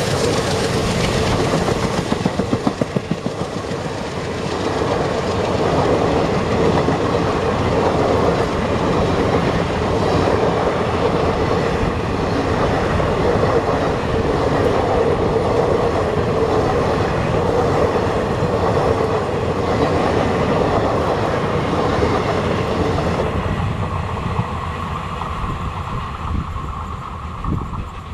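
A passenger express train rolling past at speed, its wheels clattering in a steady rhythm over rail joints over a continuous rumble and hum. The sound thins and fades over the last few seconds as the train draws away.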